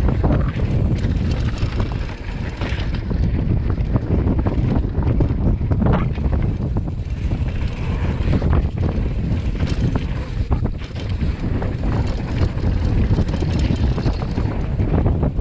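Wind buffeting a chest-mounted GoPro's microphone as a Commencal Meta HT hardtail mountain bike descends a dirt downhill trail at speed, with the tyres rolling over dirt and a few sharp clatters from the bike over bumps.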